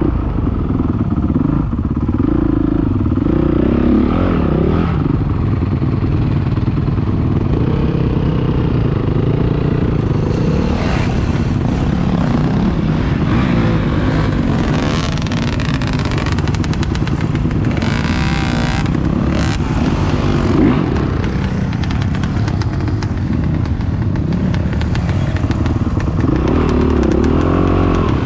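Off-road motorcycle engines revving unevenly, the pitch rising and falling with the throttle as the bikes climb a steep rocky slope. A short, sharper high-pitched rev comes about eighteen seconds in.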